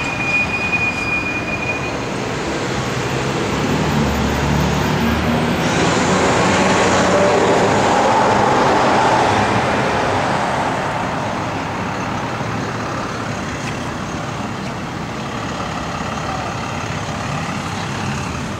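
Road traffic noise from a passing vehicle, swelling to a peak about halfway through and then fading.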